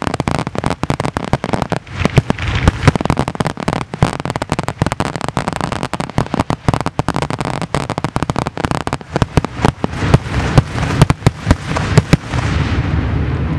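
Finale of an aerial fireworks display: a rapid barrage of shell bursts, many bangs a second, stopping about a second before the end and giving way to a steady noise.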